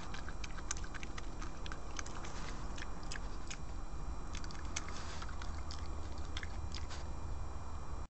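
European badger sow feeding with its snout at the ground, crunching and chewing food, heard as many quick, irregular crackling clicks over a steady low hum.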